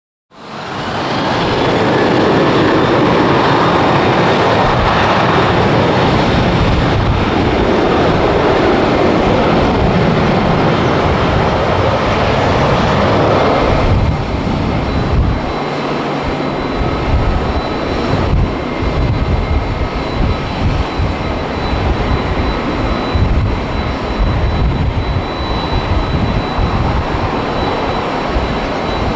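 Boeing 787-9 airliner's jet engines running at taxi power: a steady rush with a faint high whine. About halfway through the sound changes abruptly and becomes a little quieter and less even.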